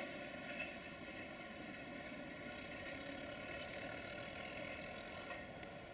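Distant LDE2100 diesel-electric freight locomotive engine running with a steady drone, slowly fading.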